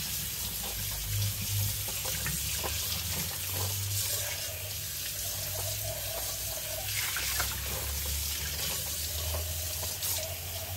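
Water running from a kitchen tap into a sink as a small glass vase is washed out under it.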